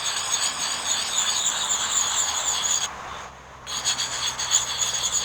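Wet sharpening puck, coarse side, rubbed against a camp axe's edge: a steady gritty scraping that breaks off briefly about three seconds in, then resumes. Insects chirp steadily in the background.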